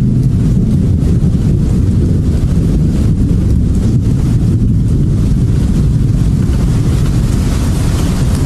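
A loud, steady, deep rumbling noise drone with no clear notes or beat: the dark ambient outro of a blackened death metal track.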